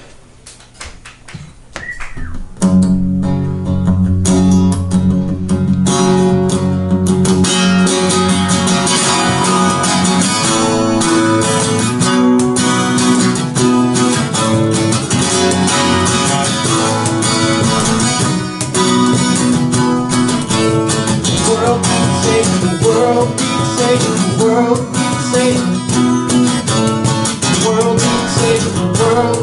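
Live acoustic guitar strumming a song, starting about two and a half seconds in after a brief hush, joined by cajon hits a few seconds later. A man sings over the guitar and cajon.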